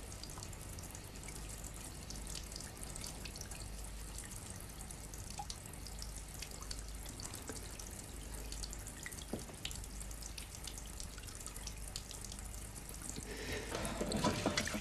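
Water from a tap running into a bathroom sink, with faint drips, growing louder near the end.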